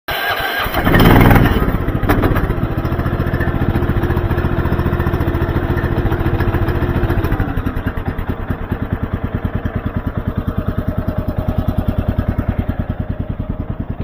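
Kohler Command PRO 14 hp single-cylinder engine on a Woodland Mills HM130MAX sawmill starting about a second in and running fast with a steady note. About seven and a half seconds in it drops to a slower, evenly pulsing idle.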